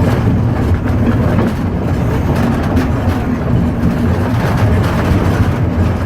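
A train running on the rails: a steady low rumble with faint clicking from the wheels on the track.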